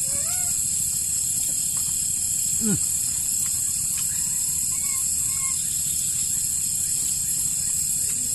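Steady, high-pitched chorus of night insects in tropical forest, with a brief falling call about three seconds in.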